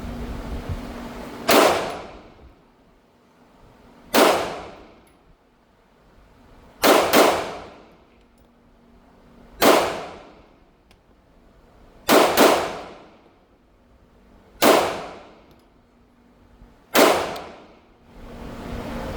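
Pistol shots fired one at a time, about every two and a half seconds, with two quick double taps among them; each shot rings on briefly.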